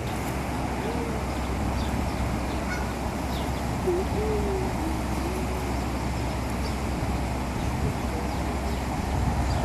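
A goose giving low, wavering calls: a short one about a second in and a longer, wobbling one from about four to six seconds in, over a steady low outdoor rumble.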